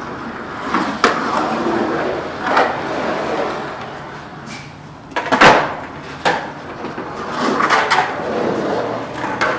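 Skateboard wheels rolling on the concrete walls and floor of an empty swimming pool, broken by several sharp clacks of the board; the loudest clack comes about five and a half seconds in.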